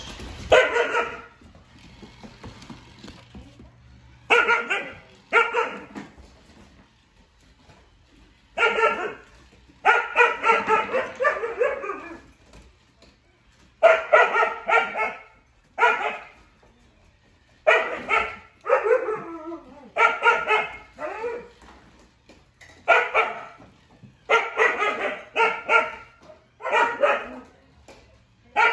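Dog barks in short bursts, singly and in quick runs, every second or two, with quiet gaps between them.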